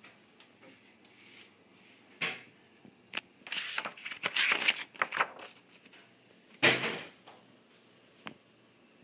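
Rustling and knocking handling sounds as a picture book is moved about and a page is turned, with a cluster of paper rustles in the middle and one loud bump about two-thirds of the way in.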